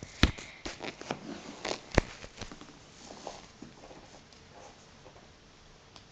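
Close handling noise on the recording device: two sharp knocks about a quarter-second and two seconds in, among rustles and small clicks, dying down to faint ticks after about three seconds.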